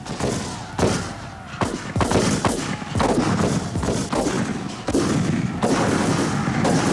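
Black-powder musket and cannon fire in a Civil War battle reenactment: scattered sharp shots over the first three seconds, then a denser, continuous din of firing from about five seconds in.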